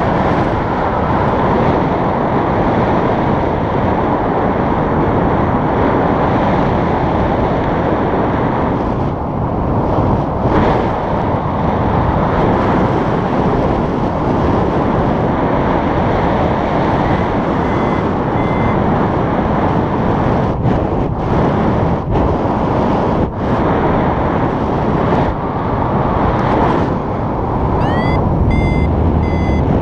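Heavy wind rush on the microphone of a paraglider in flight. From a little past halfway a paragliding variometer beeps in short repeated tones, with a quick rising chirp near the end; a vario beeps like this in rising air.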